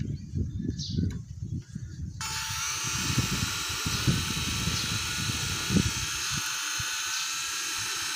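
Toy RC helicopter's small electric rotor motor starts suddenly about two seconds in and runs with a steady, high-pitched whine as the rotor spins.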